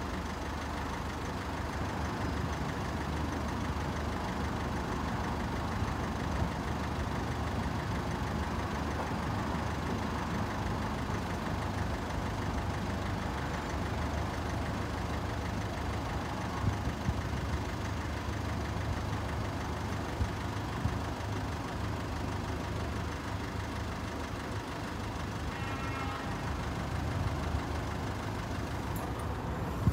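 Road vehicles idling at the closed crossing barriers: a steady low engine drone over an even background hiss.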